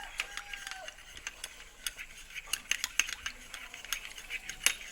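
A spoon stirring a small mixture of herb juice, lemon juice and honey, clinking against its container in irregular sharp ticks several times a second, with one louder clink near the end.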